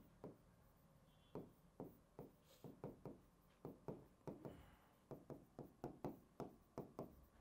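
Faint, irregular taps of a pen or stylus against the screen of a digital whiteboard, about two to three a second, each tap a pen stroke as a line of Hindi handwriting is written.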